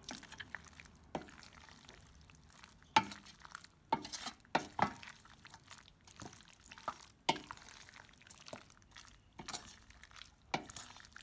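Cooked macaroni being stirred together with mayonnaise in a bowl: soft, wet stirring broken by irregular clicks of the utensil against the bowl, about one a second.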